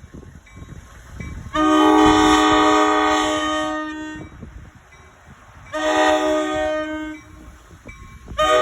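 New Jersey Transit cab car's horn blowing for a grade crossing: a long blast of about two and a half seconds, a pause, a shorter blast of about a second and a half, then another blast starting near the end. Each blast is a chord of several notes held steady, over the low rumble of the moving train.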